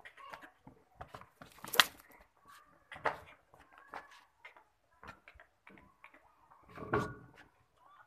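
Punjabi Beetal goats in a pen: scattered clicks and knocks, with one sharp knock about two seconds in, and a goat bleating near the end.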